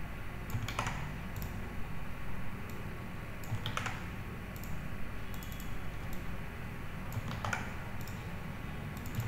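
Scattered keystrokes and clicks on a computer keyboard and mouse, a few separate taps spread across several seconds rather than continuous typing, over a steady low hum.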